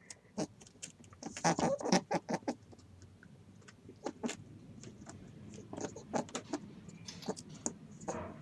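A small animal making irregular short clicks and scuffing sounds, in quick clusters at times; the loudest run comes between one and three seconds in.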